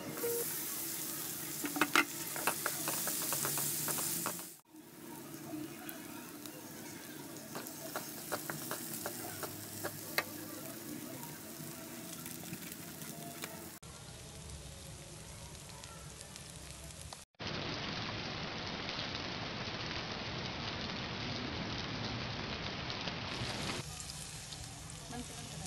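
Chopped onions, green peas and tomatoes sizzling in oil in a metal pan, with a spatula scraping and clicking against the pan as the mixture is stirred. The sizzle breaks off abruptly and starts again a few times.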